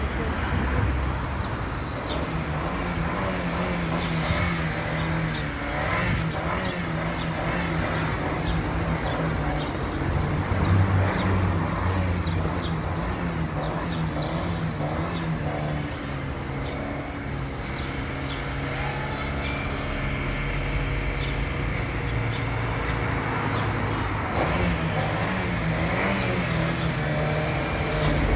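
1S toothpick FPV drone with Happymodel 1102 19000KV brushless motors and Gemfan 65 mm props buzzing in flight, its pitch wavering up and down as the throttle changes.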